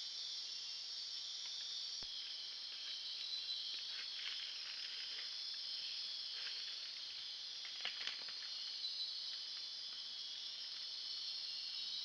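Steady high-pitched chorus of night insects, with scattered soft crackles and rustles of leaf litter in the middle as a lowland tapir walks and forages through the undergrowth.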